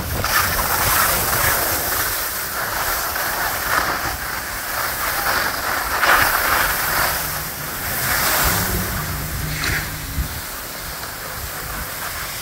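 Skis scraping over packed snow during a downhill run, a rushing scrape that swells and fades with each turn, mixed with wind on the microphone.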